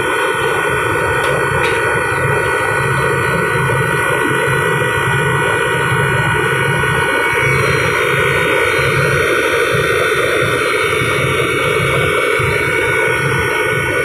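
Walk-in freezer condensing unit running steadily after its compressor was replaced: the compressor and condenser fan give a loud, even hum with a steady whine on top and a low, uneven throb.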